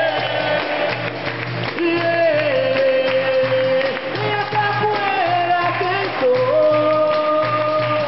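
Capoeira roda music: singing in long held notes over steady rhythmic percussion.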